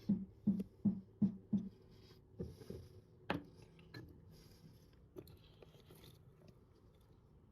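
Budgies pecking and crunching at their food: a quick run of soft knocks, about three a second, for the first couple of seconds, then scattered clicks with one sharper click near the middle.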